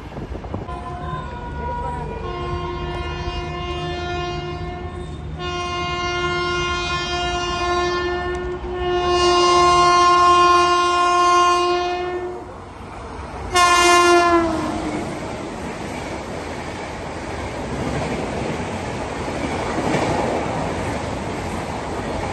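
Indian Railways train horn sounding in several long blasts, then a short, loud blast about 13 seconds in that drops in pitch. The horn is followed by the rumble and clickety-clack of a passing train.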